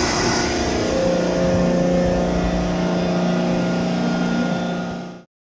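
CompAir Hydrovane 707 air compressor running steadily with a steady hum, blowing compressed air out through an open hose to atmosphere with a loud rush of air. The sound cuts off suddenly near the end.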